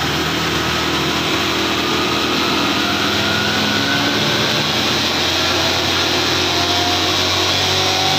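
Honda Scoopy scooter's single-cylinder engine held at full throttle on a roller dyno for a simulated 201 m drag run. It runs loud and steady while a fainter whine slowly rises in pitch.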